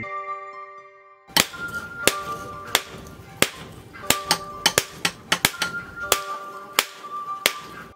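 Hand hammer striking a red-hot steel axe blank on an anvil: a string of sharp, irregular blows beginning about a second and a half in, over background music.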